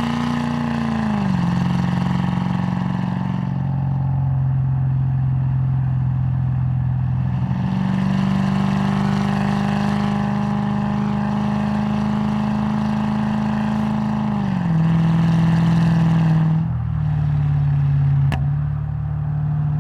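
Lexus GS430's V8 running through a custom exhaust system, held at a raised engine speed in steady stretches. The engine drops back about a second in, rises again around eight seconds, is held, then falls back near fifteen seconds. There is a single sharp click near the end.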